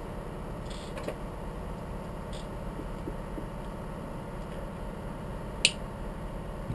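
A few small clicks and taps of hand tools on the parts of a 4th-generation iPod Touch being taken apart, the sharpest click about five and a half seconds in, over a steady low hum.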